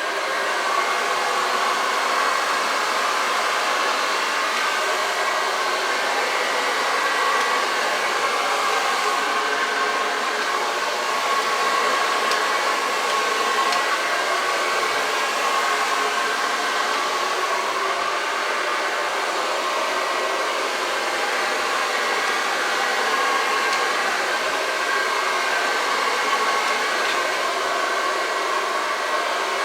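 Hair dryer running steadily: an even rush of air with a faint steady whine in it.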